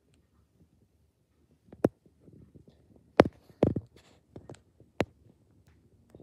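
Hands working hair elastics down a braid: soft rustling of hair with about four sharp clicks, the loudest about three seconds in.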